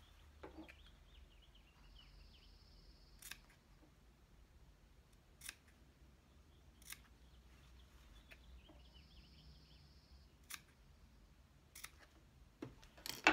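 Fabric scissors snipping into the curved seam allowance of a sewn cloth mask, clipping the seam so the curve opens up. The snips are short and sharp, a few seconds apart at first and closer together near the end, where the loudest one falls.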